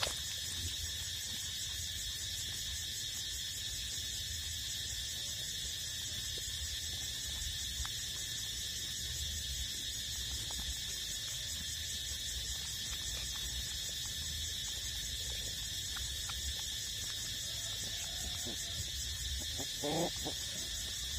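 A steady, high-pitched chorus of insects. About nineteen seconds in, a puppy gives a brief whimper that rises and falls.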